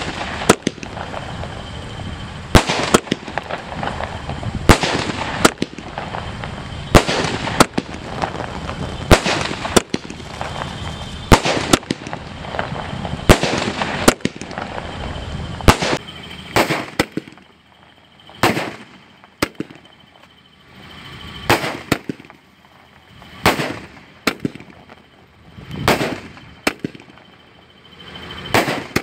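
A 500-shot aerial firework cake firing. A fast run of bangs with crackling stars between them lasts about the first sixteen seconds, then single shots bang out about every two seconds.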